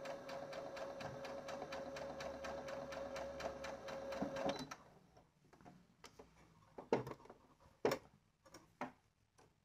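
A domestic sewing machine runs a seam with a steady motor hum and an even, rapid stitching tick, then stops about halfway through. A few light clicks and taps follow.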